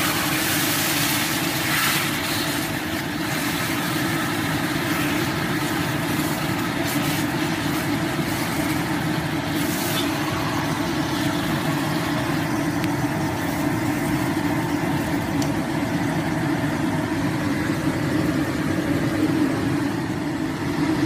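Marinated chicken pieces frying in a hot steel wok, sizzling steadily as they are turned with chopsticks, over a steady low hum.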